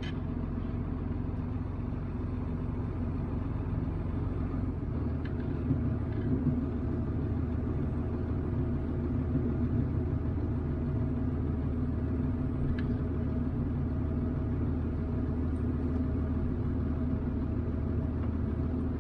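Diesel engine of heavy farm haying machinery running steadily under load, heard from inside the cab as an even low drone.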